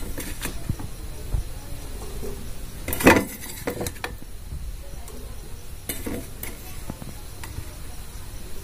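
Chunks of raw potato dropped one by one into a frying pan of dry noodles and tomato pieces: several separate knocks and clatters against the pan, the loudest about three seconds in.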